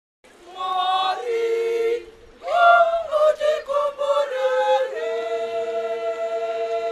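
A choir singing a Shona Catholic hymn unaccompanied, in harmony: a short phrase, a brief pause, a run of changing notes, then a long held chord from a little past the middle.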